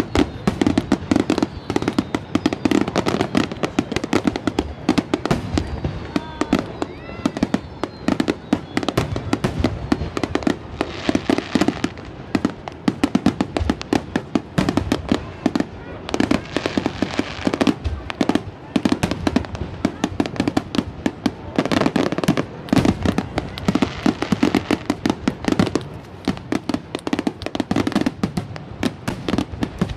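Fireworks display: a dense, continuous barrage of bangs and crackles, many bursts a second without a pause.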